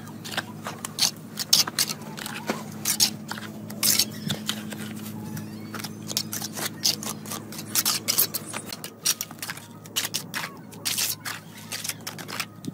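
Steel trowel scraping wet cement mortar out of a plastic bucket and across bricks, with bricks scraped and knocked as they are set into place: a run of short, irregular scrapes and clicks.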